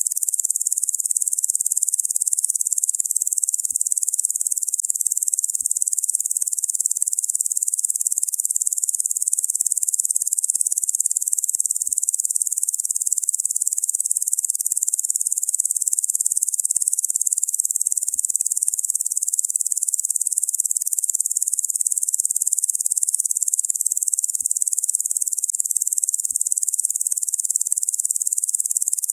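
Locusts making a continuous high-pitched buzzing drone, steady and unbroken, with nothing lower in pitch beneath it.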